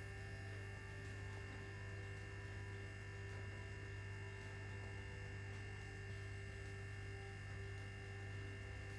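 Steady low electrical hum with a few faint, steady high tones over it, unchanging throughout.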